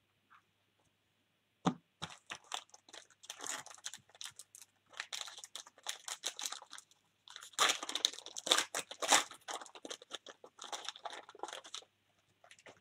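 Crinkling and crackling of something being handled close to the microphone, in dense irregular bursts. It starts about two seconds in, is loudest a little past the middle, and stops shortly before the end.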